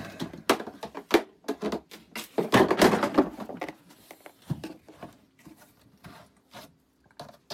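Hard plastic knocking, tapping and scraping as the motor-head lid and drum of a Ridgid HD0600 6-gallon wet/dry vacuum are handled and fitted back together. The scraping is loudest about two and a half to three seconds in.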